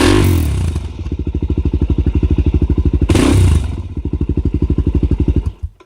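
Suzuki DR-Z400S single-cylinder four-stroke running through a Yoshimura full exhaust with the spark arrestor fitted, idling with an even, fast firing beat. It is blipped louder twice, at the start and about three seconds in, and stops abruptly near the end.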